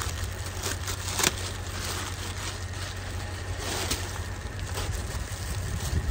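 Clear plastic packaging rustling and crinkling as a rain jacket is pulled out of its bag, with a few sharp crackles, the loudest about a second in, over a steady low rumble.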